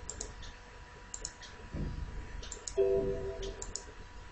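Computer mouse button clicking about four times, each click a quick press-and-release pair. A brief electronic tone sounds once about three seconds in.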